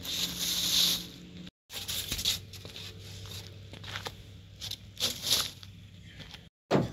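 Rustling and crinkling handling noises, with a louder rustle in the first second, broken by two brief silent cut-outs, one about a second and a half in and one near the end.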